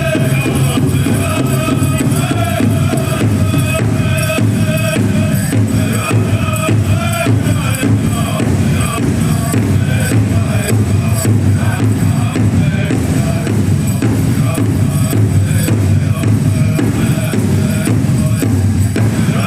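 Powwow drum group singing over a steady, even drumbeat: a contest song for prairie chicken and grass dancers.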